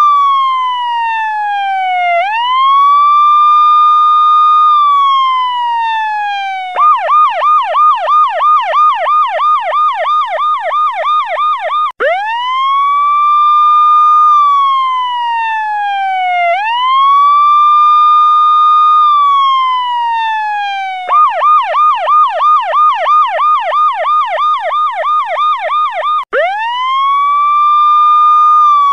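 Electronic police-style siren sounding loudly, alternating a slow wail with a fast yelp. Each wail rises quickly, holds, then falls over about four seconds. Twice the siren switches to a rapid yelp of about four warbles a second for roughly five seconds before returning to the wail.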